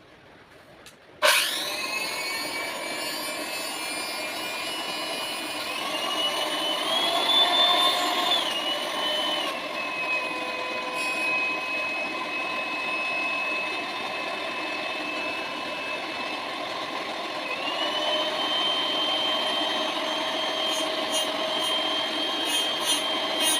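Electric mixer's motor switched on about a second in and running with a steady whine, its pitch stepping up and down a few times as the speed changes.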